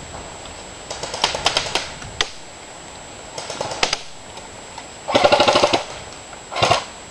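Airsoft guns firing in several short bursts of rapid snapping shots. The longest and loudest burst comes about five seconds in, and a shorter one follows near the end.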